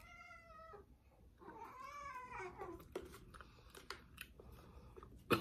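A cat meowing twice: a short, fairly level meow, then a longer meow about two seconds in that rises and falls in pitch. A few light clicks follow, with a sharp click near the end.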